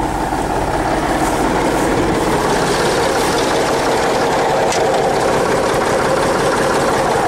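Tractor diesel engine idling steadily close by.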